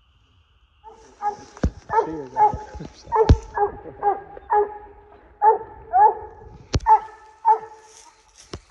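Coonhound barking in a steady rhythmic chop of about two barks a second, starting about a second in, with a few sharp clicks among the barks.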